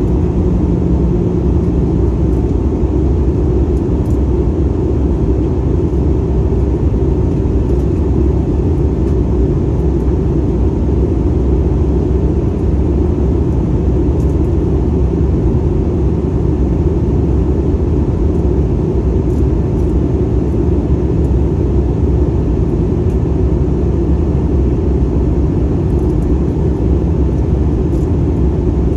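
Steady rumble of engine and airflow noise inside a jet airliner's cabin, heard from a window seat in flight.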